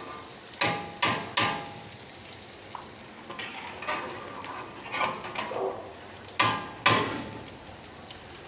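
Vegetables and fried onion sizzling in oil in a kadhai while a metal utensil stirs and scrapes them, clanging against the pan with a short ring three times about a second in and twice more near the end.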